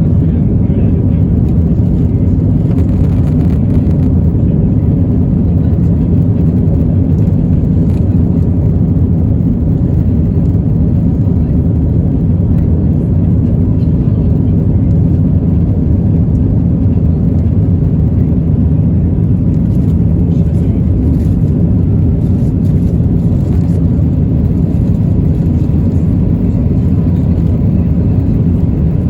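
Airliner cabin noise during take-off on a Wizz Air Airbus A320-family jet: a loud, steady, deep rumble of jet engines and airflow.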